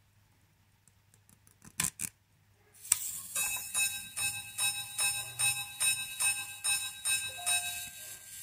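Minute repeater watch movement chiming: a few faint clicks as the repeater is set off, then the hammers strike the gongs in a quick, regular series of ringing notes, about two a second, with a really nice tone on the gongs.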